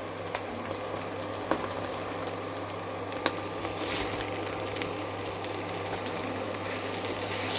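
Mashed amla pulp cooking in a pan on the stove: a steady, even sizzle under a constant low hum, with a few light clicks.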